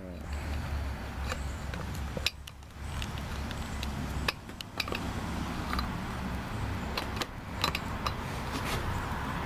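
Scattered metallic clicks and clinks of a wrench being fitted onto and turned on a new spark plug in a string trimmer's engine, over a steady low rumble in the background.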